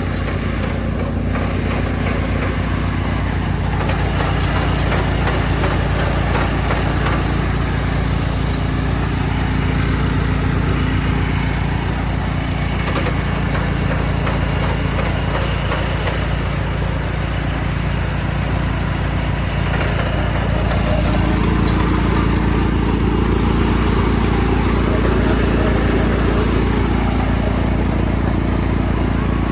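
Yanmar rice combine harvester's diesel engine running steadily under work, with its machinery drone; the engine note shifts and grows a little louder about two-thirds of the way in.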